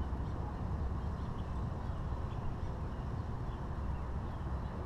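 Steady low rumbling background noise with faint, scattered bird chirps.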